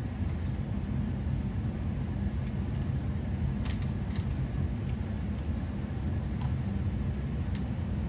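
A few faint clicks as pallet forks are fitted by hand onto the quick-detach of a remote-control CAT 297D2 skid steer, over a steady low hum.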